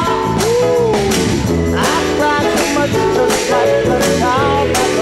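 Background music: a sung melody over a steady beat.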